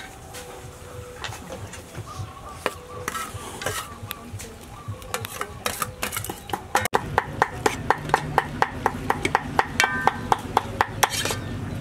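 A metal spatula stirring sliced onions and pork in an aluminium pot, scraping and knocking against the pot about three times a second from about seven seconds in. Before that come scattered clinks of metal utensils on the bowl and pot as the meat is tipped in.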